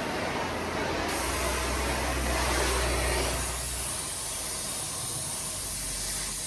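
Hand-held gas torch burning with a steady rushing hiss as the flame is opened up to heat an exhaust tailpipe; the hiss turns brighter about a second in.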